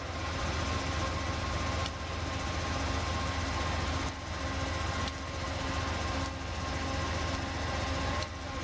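GO Transit commuter train's diesel engine idling: a steady low rumble with a faint steady higher hum above it.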